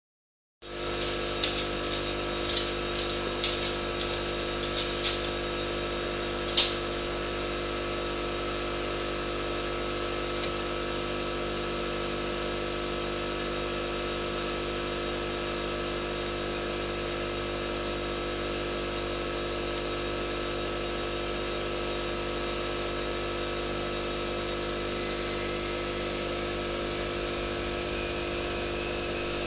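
Aquarium pump running with a steady hum of several tones over an even hiss, with a few light clicks and one sharper tap in the first seconds.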